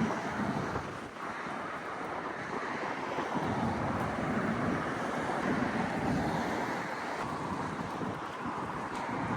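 Sea waves washing onto a beach, swelling a little midway, with wind buffeting the microphone.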